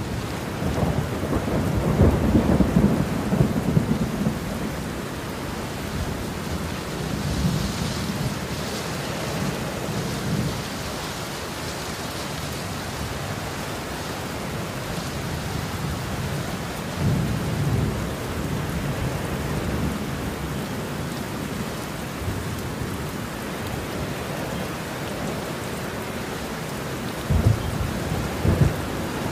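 Heavy rain falling steadily, with thunder rumbling several times: strongest from about one to four seconds in, again around seventeen seconds, and near the end.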